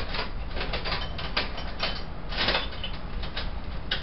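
Irregular clinks, taps and rustles of tools and small metal pieces being handled and rummaged through on a workbench, the busiest clatter about halfway through, over a steady low hum.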